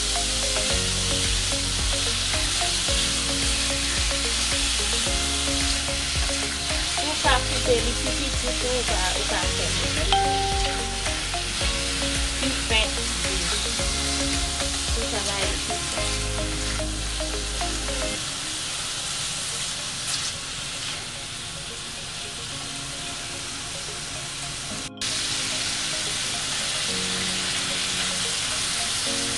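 Thin strips of beef sizzling in an oiled nonstick pan, stirred and turned with a silicone spatula, with scraping strokes through the frying. Low background music runs under it for the first eighteen seconds or so, then fades back.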